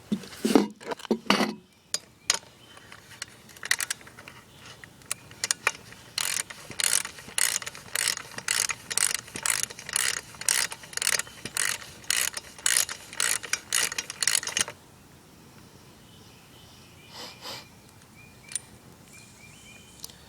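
Recoil starter of an Echo SRM-210 two-stroke string trimmer, pulled over and over in quick short strokes, about two a second, spinning the engine for a compression test. The pulls stop about three quarters of the way through, after a few sharp knocks near the start.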